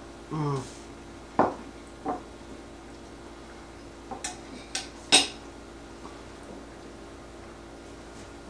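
A fork clinking on a ceramic plate as the plate is set down on a wooden counter: a few sharp clinks, the loudest about five seconds in. Just before them, a short hummed "mm" while chewing.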